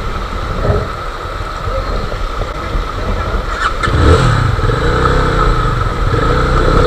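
Yamaha FZ25's single-cylinder engine running low, then revving from about four seconds in, its pitch rising and falling.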